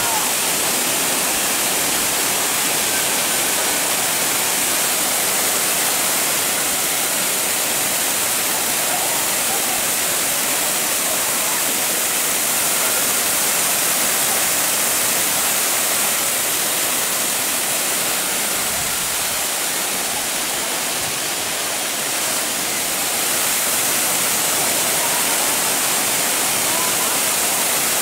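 Dudhsagar Falls, a tall waterfall plunging down a rock face into a pool: a steady, loud rush of falling water.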